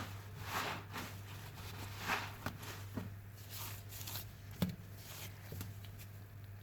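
Wet sponge full of soapy foam being squeezed and released, giving short squelching swishes every second or so, with a couple of sharp clicks about four and a half seconds in, over a steady low hum.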